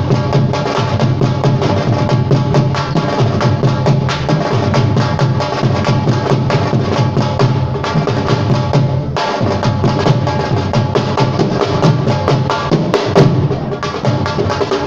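Live percussion music: dense, rapid drum strokes over steady held tones, with a short break in the texture about nine seconds in.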